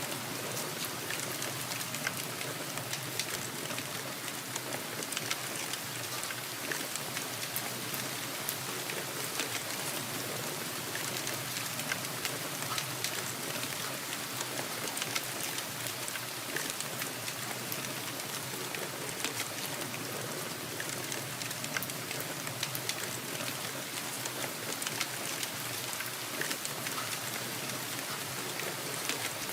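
Steady rainfall: an even hiss with many individual drops ticking through it.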